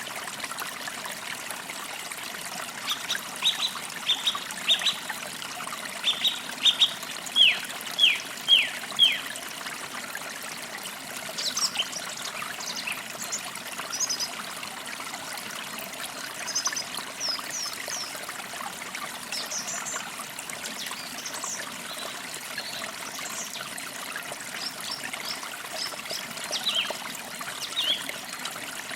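Forest creek trickling steadily, with birds calling over it: a run of about eight sharp descending notes between three and nine seconds in, the last few loudest, then scattered short high chirps.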